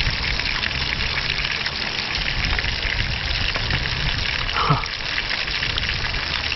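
Fish frying in oil in a pan, a steady sizzle, with a low wind rumble on the microphone.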